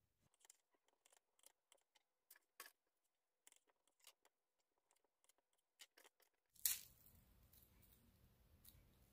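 Knife cutting through slices of sandwich bread on a wooden cutting board: a run of quick, faint crackling ticks as the blade goes through the crust. About two-thirds of the way through comes one sharp click, then faint steady background noise with a few light crackles as dry toasted bread cubes are handled.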